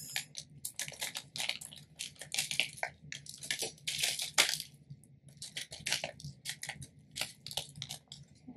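Crinkling and rustling of a small clear packet of tiny hotfix rhinestones being squeezed and shaken, with the stones spilling out onto a rhinestone template: a dense run of irregular crackles.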